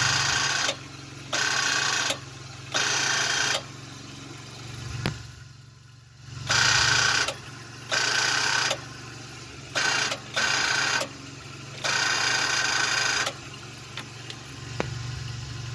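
Starter solenoid on a 480 backhoe chattering in rapid buzzing bursts each time the key is turned, about eight tries of around a second each over a steady low hum. The engine does not crank; the owner suspects a bad connection from corroded battery terminals.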